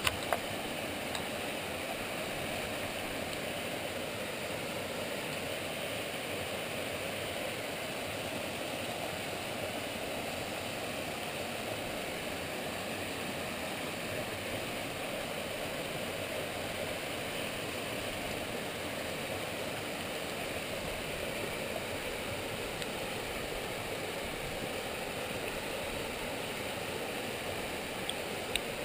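Small waterfall sliding down a rock face into a pool: a steady, even rush of water.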